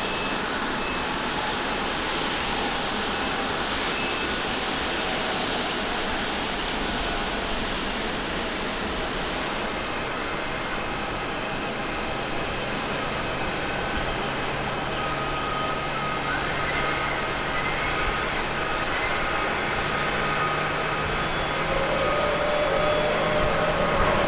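Jet airliner engines across the airfield: a steady rushing noise with faint whining tones. It grows louder near the end as the Airbus A350-900's Rolls-Royce Trent XWB engines run on the runway.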